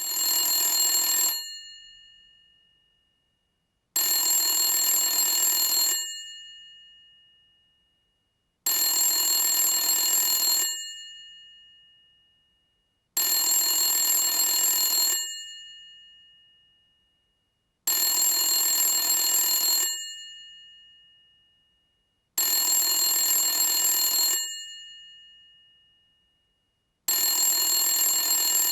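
Old telephone's bell ringing in bursts of about two seconds, repeating every four to five seconds, seven rings in all. After each ring the bell tones fade away slowly.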